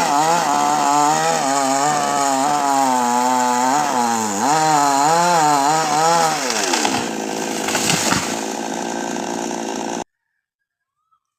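Chainsaw cutting a tree, its engine pitch wavering up and down under load. About seven seconds in the engine speed drops steeply into a rougher noise, with a short sharp crack near eight seconds, and the sound then cuts off abruptly.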